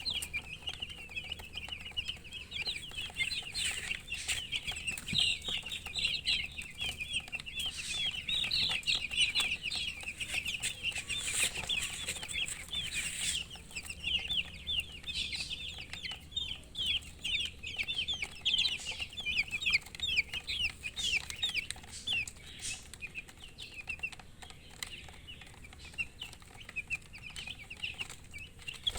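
A brood of baby chicks peeping: many short, high chirps overlapping in a continuous chorus.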